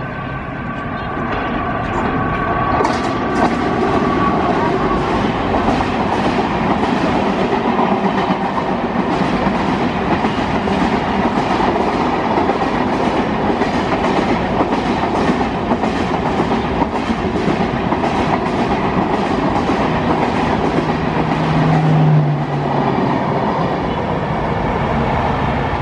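WAP4 electric locomotive and its LHB coaches passing close below. A steady whine sounds as the locomotive comes up, then the wheels clatter over the rail joints in a fast run of clicks. The rush swells about two seconds in and eases near the end as the last coach goes by.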